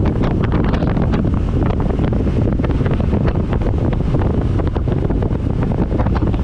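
Wind buffeting the microphone of a moving motorcycle, a loud steady rush with gusty flutters, over the bike's road and engine noise.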